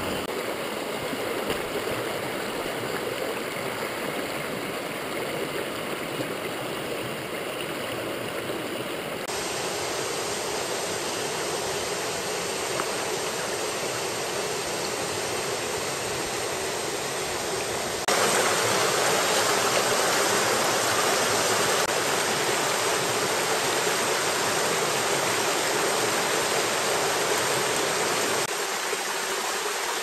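Rocky mountain headwater stream flowing: a steady wash of running water. It shifts suddenly in level and tone about 9 seconds in and again about 18 seconds in, louder after the second shift, and eases slightly near the end.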